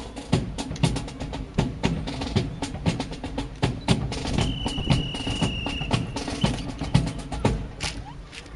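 Sharp clacks and slaps of drill rifles being spun, caught and slapped by a drill team, in quick irregular succession, with a thin high steady tone for about a second and a half midway.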